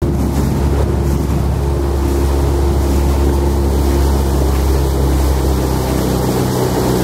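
Motorboat engine running steadily at even speed, a low hum with water and wind noise over it.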